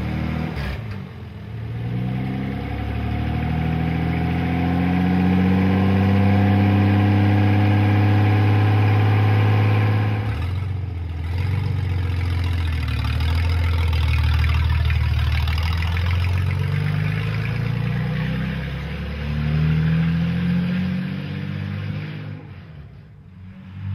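Freshly rebuilt 1951 Studebaker Champion's flathead six-cylinder engine running and being revved, rising and falling in pitch. After a break about ten seconds in, the car is heard running again and accelerating, and the sound drops away just before the end.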